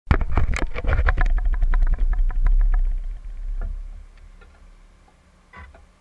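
Handling noise on a small camera: a fast, irregular run of clicks and knocks over a low rumble as fingers set and switch on the camera on the model tug's deck, dying away after about three seconds, then a few faint clicks.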